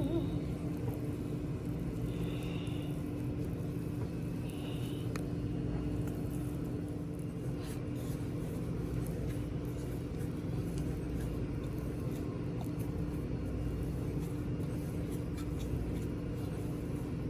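A small electric motor running steadily with a low, even hum.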